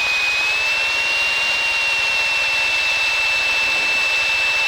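Steady in-flight cabin noise of a Piper PA-28-161's four-cylinder Lycoming engine and propeller, with a steady high whine running through it that rises slightly about half a second in.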